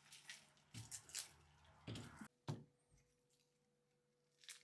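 Faint handling noises from food preparation: a few soft taps and rustles in the first two and a half seconds, the sharpest about halfway through, then near silence with a faint steady hum.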